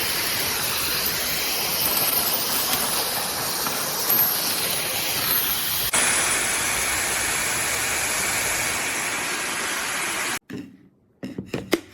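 Hair dryer with a high-speed brushless motor blowing steadily, an airy rush with a faint high whine. Its sound changes abruptly about six seconds in and cuts off a little after ten seconds, followed by a few light clicks and knocks.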